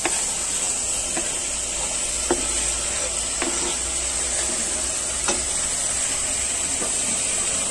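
Onions and ginger-garlic paste sizzling steadily in hot oil in an aluminium pressure cooker as chopped tomatoes are scraped in and stirred. A few sharp clicks from metal utensils hitting the pot and cutting board.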